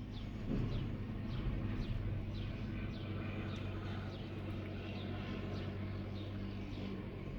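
A bird calling in a string of short, high, falling chirps, about two a second, over a steady low hum.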